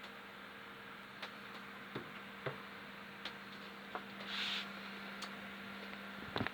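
Low steady electrical hum from a power inverter running a microwave. Scattered light ticks come about once a second, a short hiss a little past the middle, and a quick cluster of clicks at the very end.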